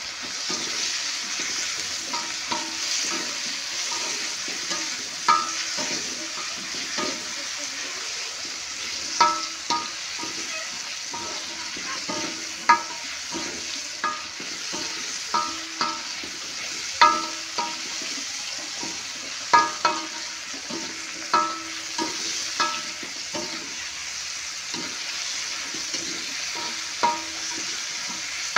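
Chilies, tomatoes, shallots and garlic sizzling in oil in a wok as a metal spatula stirs them, the spatula clinking against the wok at irregular moments.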